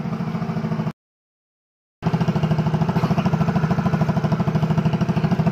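Yamaha Mio Soul i 115 scooter's single-cylinder four-stroke engine idling with an even, rapid beat of about ten pulses a second. The sound cuts out completely for about a second, about a second in, then the idle resumes.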